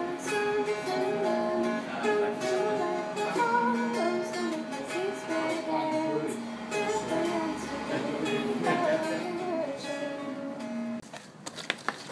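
Mountain dulcimer plucked on the lap, playing a melody of held notes that stops about eleven seconds in.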